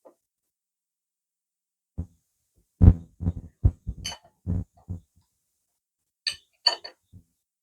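Irregular dull thumps, then a few sharp metallic clinks about four seconds in and again near the end, as the motorcycle's fork tubes are worked up into the triple trees.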